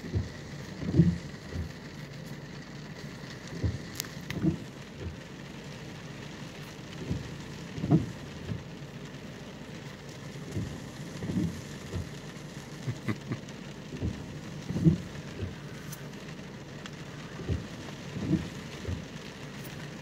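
Steady rain with big drops landing in short, irregular thuds, about one a second, heard from inside a car as they strike its roof and glass.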